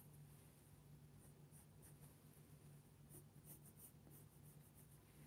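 Faint scratching of a Faber-Castell 9000 graphite pencil on paper, a run of short, irregular strokes as eye outlines are sketched.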